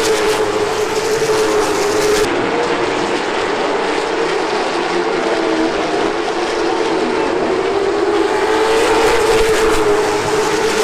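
Late model stock cars' engines running at racing speed, one steady engine note with a slight dip and a rise under the noise of the field.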